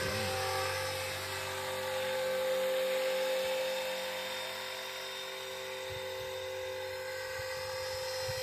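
Radio-controlled Bell 206 JetRanger scale model helicopter in flight: a steady high whine of its motor and rotors, swelling a little a couple of seconds in and easing off past the middle.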